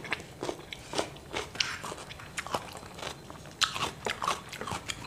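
Chewing a mouthful of raw cucumber, with irregular crisp crunches a few times a second.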